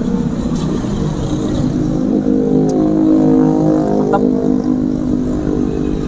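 Road traffic: a motor vehicle passing close by, its steady engine note growing louder toward the middle and then easing off.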